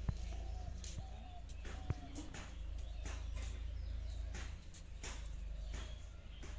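Footsteps in rubber flip-flops on packed earth, a soft slap about every half second, over a steady low rumble. Birds chirp briefly now and then in the background.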